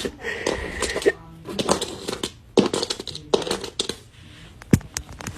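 An irregular clatter of sharp clicks and knocks, with a short steady high tone within the first second and one loudest knock near the end.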